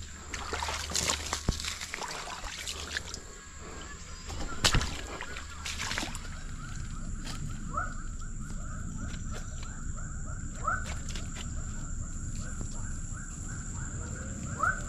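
Footsteps crunching and rustling through dry palm fronds, sticks and forest debris, with a sharp snap about four and a half seconds in. Then riverside ambience with a repeated short rising animal call every few seconds over a steady high whine.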